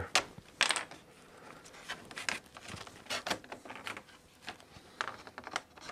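Light, irregular wooden clicks and taps as small hardwood wedges are worked loose from around the wooden slats of a tambour door and set down on them.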